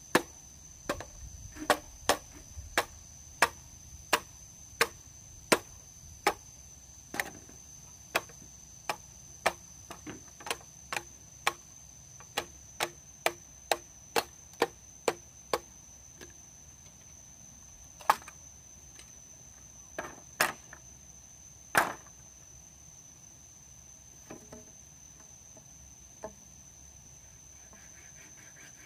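A run of sharp chopping strikes at a steady pace of about one to one and a half a second. They stop after about sixteen seconds, and a few scattered strikes follow. A steady high-pitched tone runs underneath.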